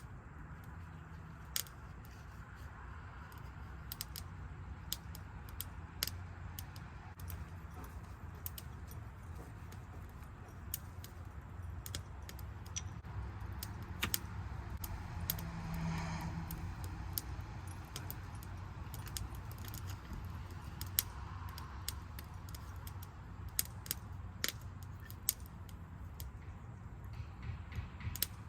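Wood campfire crackling, with many sharp, irregular pops over a low steady rumble.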